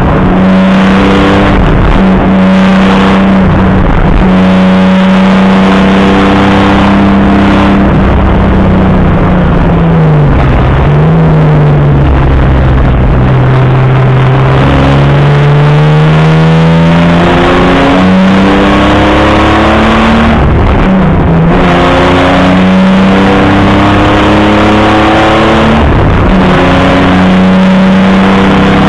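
Opel Commodore A race car's straight-six engine running hard, heard loud from inside the car. The revs fall about ten seconds in as it slows for a corner, then climb steadily back up through the gears, with a brief dip at a gear change near the end.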